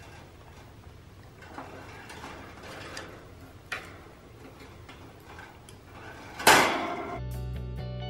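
A few faint clicks and knocks over low room noise, then a short loud burst of noise about six and a half seconds in that dies away quickly. About a second before the end, background music with a steady bass line and guitar starts.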